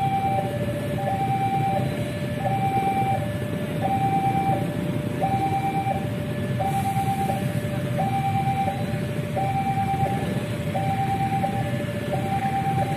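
Level-crossing warning alarm sounding a steady two-tone high-low chime, about one cycle every 1.4 seconds, over the low rumble of an approaching diesel locomotive hauling a passenger train.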